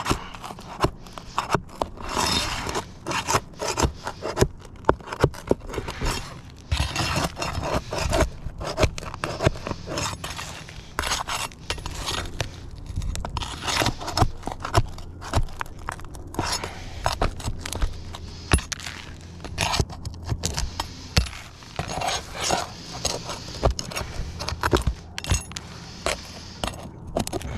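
A flat bar scraping and prying under roof shingles, lifting them to get at the nails, with many irregular sharp clicks and scrapes.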